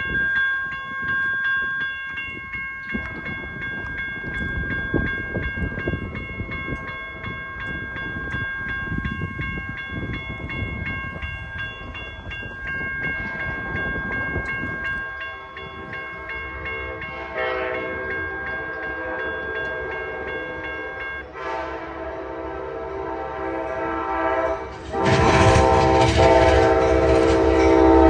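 A grade-crossing warning bell ringing for about the first half, then an approaching Amtrak GE P42 diesel locomotive sounding three long horn blasts. The last blast is the loudest and comes with heavy engine and rail noise as the locomotive reaches the microphone.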